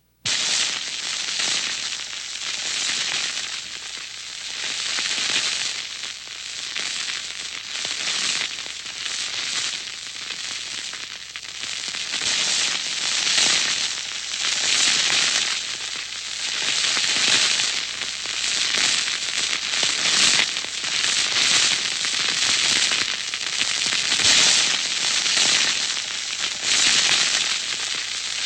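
A long gunpowder fuse burning, sputtering and crackling with a hiss that swells and dips unevenly every second or two.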